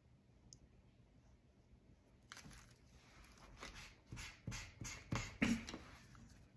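An alcohol ink marker being wiped clean to remove the ink its tip has picked up: about a dozen quick rubbing strokes at roughly three a second, starting about two seconds in and getting louder toward the end.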